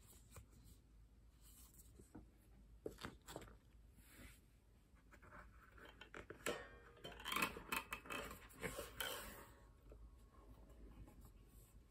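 Hand-handling noises: scattered light clicks and paper rustles, then a louder stretch of rubbing and scraping from about six and a half to nine and a half seconds in as the Harpika lyre harp is handled and lifted out of its padded case.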